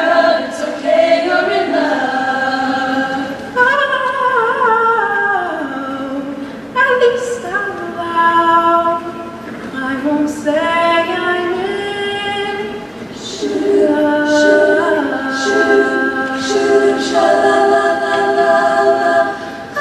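Women's choir singing a cappella in close harmony: moving parts that rise and fall, then long held chords over the last six seconds or so as the song reaches its close.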